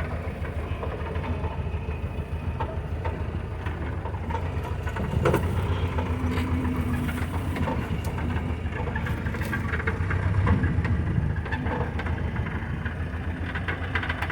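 Old Jeep's engine running steadily at low speed over rough ground, with scattered knocks and rattles from the vehicle. It gets louder briefly about five seconds in and again around ten seconds.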